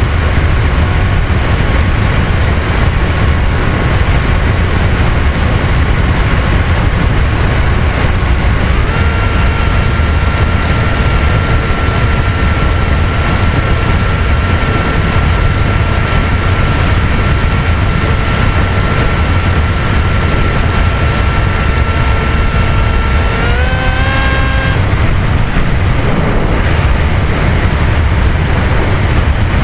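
Easystar RC plane's electric motor and propeller whining at a steady pitch over heavy wind rumble on the microphone. The whine steps up in pitch about nine seconds in, rises once more later on, then cuts out, leaving only the wind.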